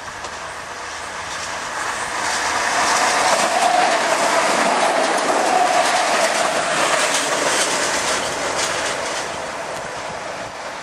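Adelaide suburban diesel railcar passing close by, its engine and wheel noise building to a peak midway and then fading as it goes past. Rapid clicks of the wheels over rail joints run through the loudest part.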